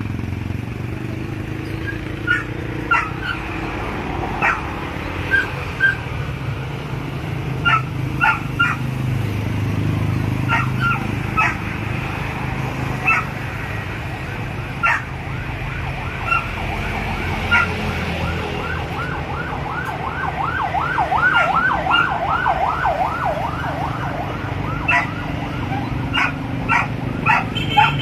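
A dog barking in short, scattered barks. For several seconds past the middle comes a rapid warbling, siren-like wail that rises and falls about four times a second. A steady low hum runs underneath.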